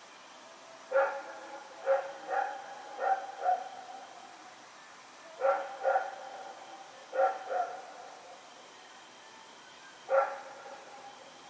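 A Belgian Malinois barking in short bursts: five barks in quick succession, then two pairs, then a single bark near the end.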